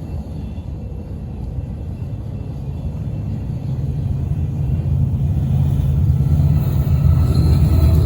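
Extreme wind buffeting the microphone: a low rumble that grows steadily louder. Faint steady tones come in near the end.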